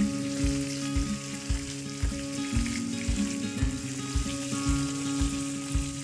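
Whole fish frying in hot oil in a wok, a steady sizzle, under background music with a steady beat of about two thumps a second and held notes.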